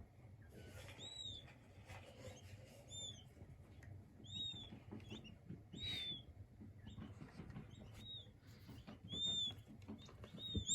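King quail chicks peeping: short, high, arched cheeps that rise and fall, scattered irregularly about once a second, over faint scratching and rustling.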